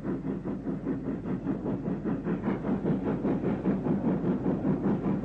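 NCC WT-class 2-6-4 tank steam locomotive working a train at speed, its exhaust beating in a quick, even rhythm of several beats a second.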